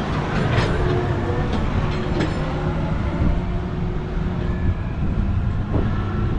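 Heavy diesel farm machinery running steadily on the road, a continuous low-pitched engine sound with road noise.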